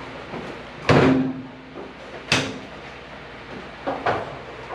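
Metal hood-latch hardware clacking as it is worked on the hood. A sharp clack about a second in is followed by a short ringing tone, another clack comes near the middle, and softer knocks follow near the end.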